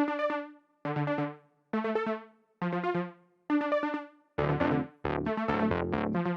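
Electronic background music: short synthesizer chords repeat a little under once a second, then a fuller arrangement with a beat comes in about four seconds in.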